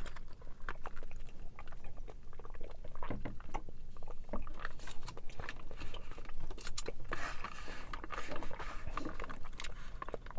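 Sipping strawberry milk tea and tapioca boba pearls up a wide straw, then chewing the chewy pearls with many small wet mouth clicks.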